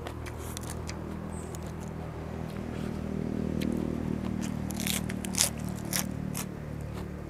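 Close-up eating sounds: a person biting and chewing food, with a few sharp clicks about five to six and a half seconds in. A steady low hum runs underneath.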